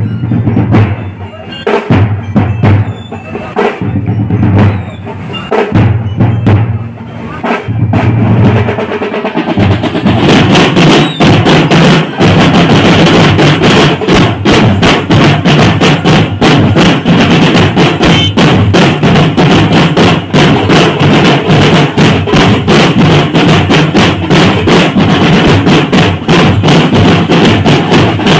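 Marching drum and bugle corps playing: snare and bass drums beating, with spaced heavy bass drum hits at first. About ten seconds in, the playing becomes louder and denser, with rapid drumming over a steady held tone.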